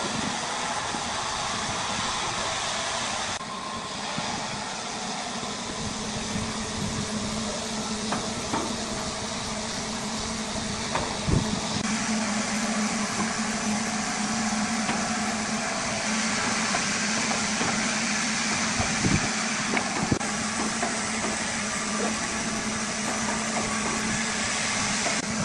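An engine running steadily with a low hum, with a few sharp knocks along the way.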